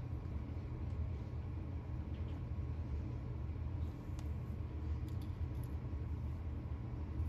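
Steady low rumble of room background noise, with a few faint light taps of paper cut-outs and a squeeze glue bottle being handled about four and five seconds in.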